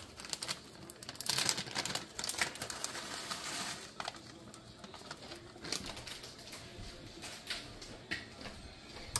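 Plastic bag of grated Parmesan cheese crinkling and rustling as it is shaken out over a pot of pasta, in short irregular rustles.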